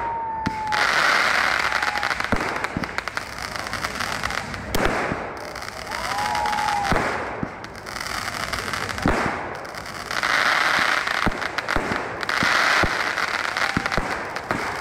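Aerial fireworks: repeated sharp bangs of shells bursting a few seconds apart, with stretches of hissing and crackling between them and two short falling whistles.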